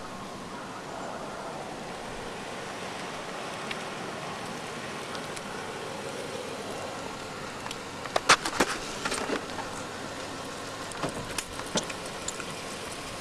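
An SUV driving slowly past and turning, a steady engine and tyre noise, with a cluster of sharp clicks and knocks about eight seconds in and a few more near eleven seconds.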